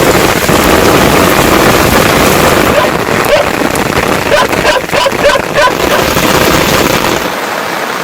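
Heavy monsoon rain pouring, with wind buffeting the microphone until near the end, when the low rumble drops away. Short faint calls or voices come through the rain in the middle.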